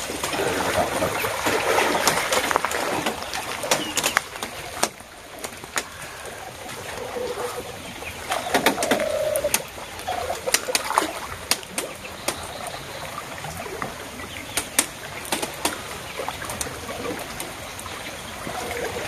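Pond water sloshing and splashing as men wade and haul a seine net through the shallows. The sloshing is loudest for the first three seconds, then short sharp splashes come one after another.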